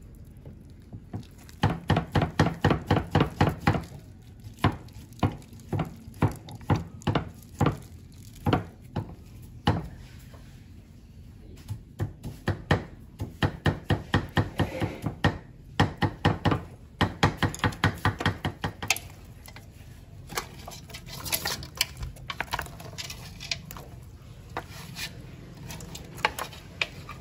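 Knife chopping food on a cutting board in quick runs of about six strokes a second, with short pauses between runs and fewer, lighter strokes near the end.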